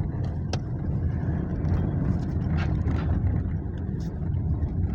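Toyota Innova engine running steadily with a low rumble and a few faint ticks. The lagging knock it makes when stopped is traced to play in the alternator pulley bearing.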